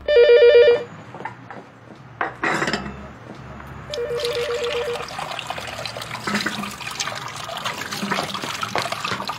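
A cordless phone's electronic ring, a warbling trill that sounds once at the start and again about four seconds in, for an incoming call. Between and under the rings, tap water runs steadily into a sink as a bowl is washed.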